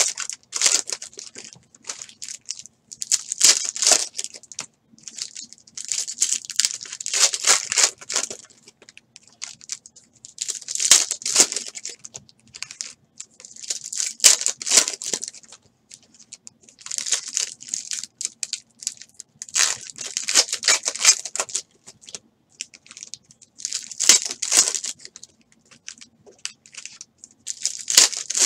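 Foil wrappers of basketball trading-card packs being torn open and crinkled in the hands, in short bursts every few seconds.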